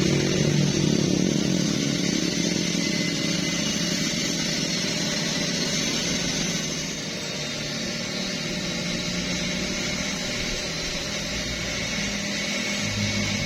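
A motor running steadily under a dense hiss, easing slightly about seven seconds in.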